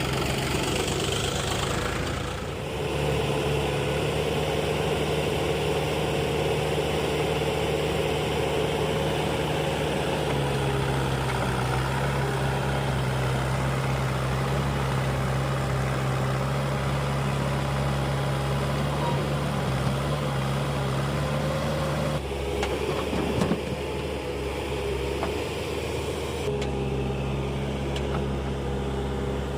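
Heavy diesel engine running steadily near idle, its note stepping down and back up a few times as the throttle changes.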